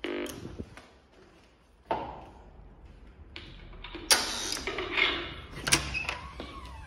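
Glass entrance door with a metal push bar being handled: scattered clicks and knocks of the latch and frame, with a louder rattle about four seconds in.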